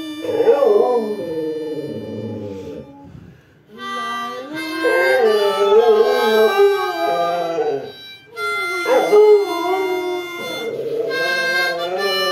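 A dog howling along to a harmonica, its wavering howls rising and falling over the harmonica's held chords. The two go in three long phrases, with short breaks about three and a half seconds in and about eight seconds in.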